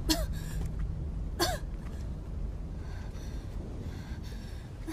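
A woman coughing and gasping, two sharp bursts about a second apart, then fainter breaths, over a low steady rumble.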